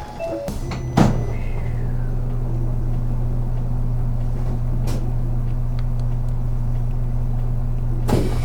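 City bus running steadily, its engine hum heard from inside the cabin, with a sharp knock about a second in and a few lighter clicks later.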